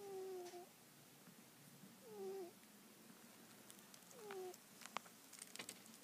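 A sleeping pet snoring faintly, with a whistling note that falls slightly in pitch on each breath, three times about two seconds apart. A few small clicks come near the end.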